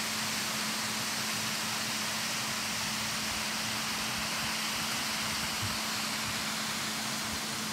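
Water rushing steadily over a mill dam spillway, an even roar with no breaks, with a steady low hum underneath.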